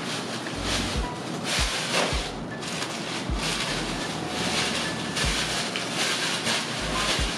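Plastic shopping bag rustling and crinkling in uneven surges as it is handled and opened to pull out the item inside.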